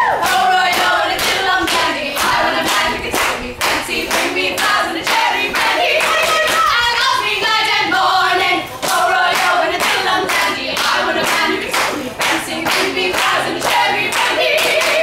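Several women's voices singing a cappella in harmony, with hand claps keeping a steady beat throughout.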